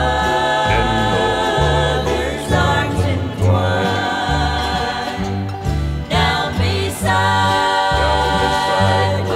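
Country music: a steady bass line changing note every second or so under held, wavering melody notes.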